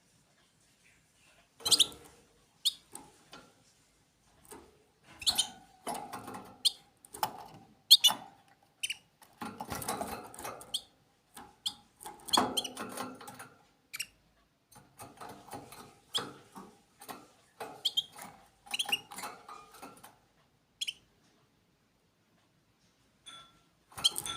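Small pet birds giving short, sharp, squeaky chirps in irregular bursts, mixed with brief scuffling, with a few quiet pauses.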